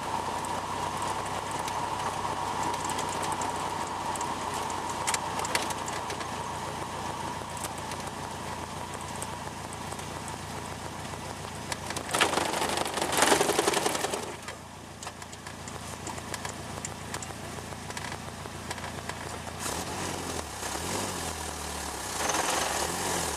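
Open Seven-style sports car driving at a steady pace, its engine and road noise running together. About twelve seconds in, the tyres rattle loudly across a metal cattle grid for about two seconds. Near the end the engine note changes and wavers as the car slows.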